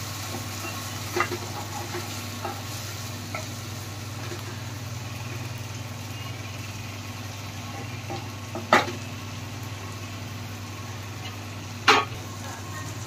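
Chopped tomatoes and onions sizzling in butter and oil in a non-stick kadhai while a wooden spatula stirs them. There are a few light clicks early on, then two sharp knocks about nine and twelve seconds in, which sound like the spatula striking the pan.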